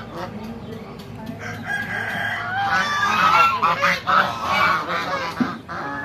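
Poultry calling: a rooster crowing and domestic geese honking, starting about a second and a half in and loudest around the middle.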